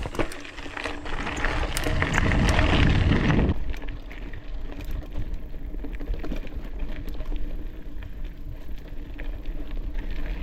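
A bicycle being ridden, with wind rushing over the microphone. The wind is loudest for the first three and a half seconds, then settles into a steadier noise with a faint low hum and scattered clicks and rattles from the bike.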